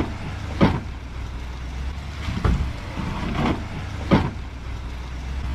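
2022 Chevrolet Silverado ZR2 pickup crawling slowly over a rock ledge, its engine running low and steady, with four sharp knocks as it climbs. The knocks are the underside striking the rock, which tore the metal under the cab.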